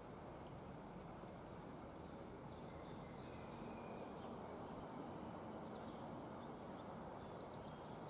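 Faint, steady outdoor background noise, with a few brief, faint, high songbird chirps scattered through it.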